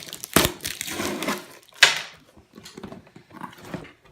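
RC car box contents being handled: cardboard and plastic packaging rustling, with two sharp clatters, the louder one nearly two seconds in, then lighter handling ticks.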